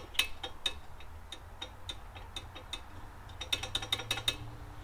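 Light metallic clicks and clinks from the heater's parts being handled, with a quick run of clicks about three and a half seconds in, over a steady low hum.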